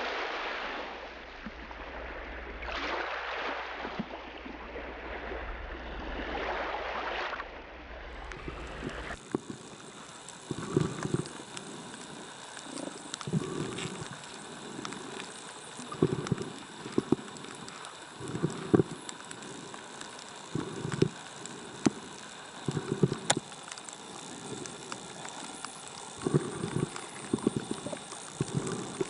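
Sea water: small waves washing in, swelling and fading every few seconds. About nine seconds in it changes to muffled underwater sound, with short low rushes of noise every second or two.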